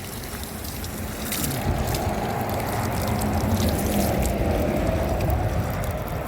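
Spring water running steadily from a pipe and pouring, a rushing, splashing flow that grows louder about a second and a half in, over a low rumble.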